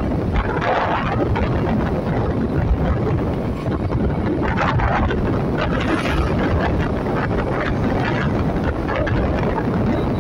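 Steady wind buffeting the microphone from a vehicle moving along a road, with the low rumble of engine and tyres underneath.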